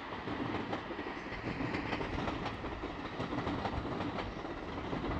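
A train running past on the tracks: a steady running noise of wheels on rail with faint repeated clicks.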